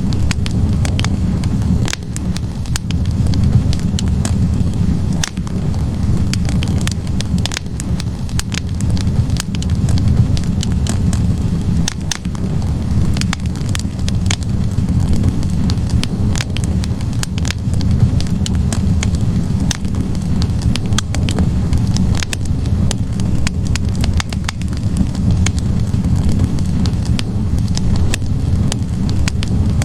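Wood fire burning in a fireplace, its logs crackling with many sharp, irregular pops over a steady low rumble of the flames.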